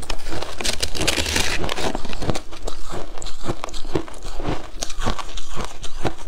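A metal spoon digging and scraping into a mound of shaved ice, a dense crackling burst about a second in, followed by crisp, irregular crunching of the ice being chewed.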